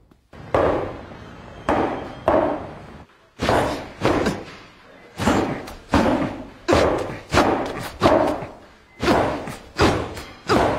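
Boxing gloves punching focus mitts: a series of about fifteen sharp thuds, unevenly spaced and coming faster in the second half. The punching rhythm is off, a sign of a boxer who can no longer throw his right.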